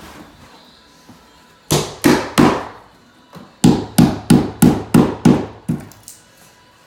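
Hammer driving the nails of carpet tack strip into a wooden subfloor: three sharp blows, a short pause, then a quick run of about seven more.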